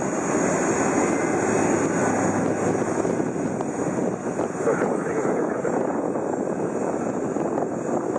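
Steady jet turbine whine over a rumble from a Boeing 747-8 freighter moving on the ramp, overlaid with heavy wind buffeting on the microphone.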